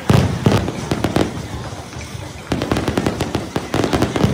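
Fireworks display: aerial shells bursting in a string of loud bangs at the start, then a quick run of crackling reports from about two and a half seconds in.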